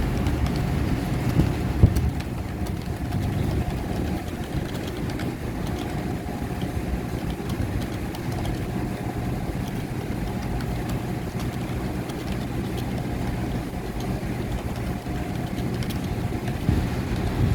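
A motor running with a steady low hum and a constant mid-pitched tone, with a few faint clicks.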